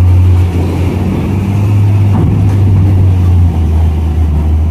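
Heavy diesel engine running with a loud, deep, steady drone.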